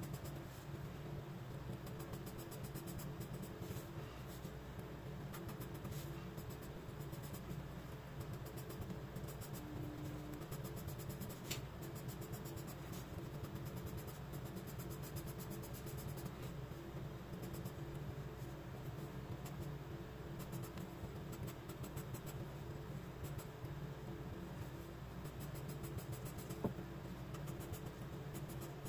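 Graphite pencil scratching on sketchbook paper in rapid short hatching strokes, over a steady low hum.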